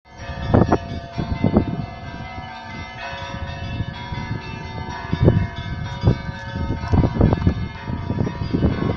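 Russian Orthodox church bells ringing a festive Christmas peal: irregular clapper strikes, with the bells ringing on between the strokes.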